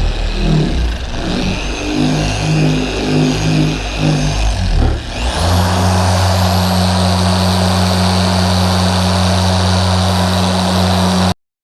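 Electric polisher working compound on an orange foam pad: the motor hums unevenly at first, then steps up about five seconds in to a steady higher-speed run with a high whine, cutting off suddenly near the end.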